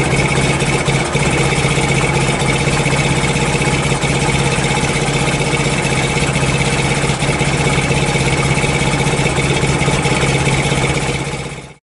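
Exhaust of a 1978–1981 classic motorcycle running steadily at one engine speed, recorded close to the pipes. It fades out and cuts off near the end.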